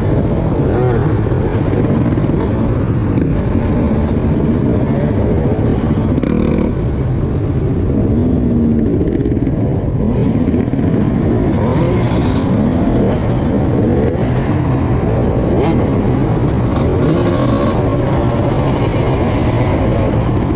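Many dirt bike engines running close together, their pitches rising and falling over and over as the throttles are blipped and revved, including the rider's own KTM SX125 125cc two-stroke.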